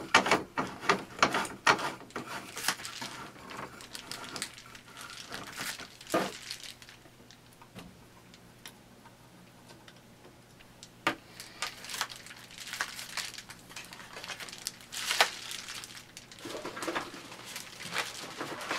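Handling noise: scattered clicks, knocks and rustles of objects being moved and set down. The clicks are dense for the first few seconds, go quiet for a few seconds in the middle, then pick up again.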